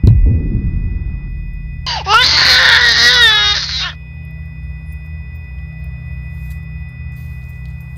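A deep thump, then a loud, high-pitched wavering wail about two seconds long, like a cry, over a steady electrical hum with faint thin high tones.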